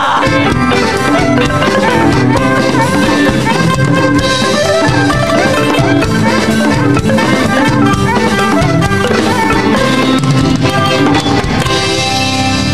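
Band music with drums and melodic instruments, dense and steady.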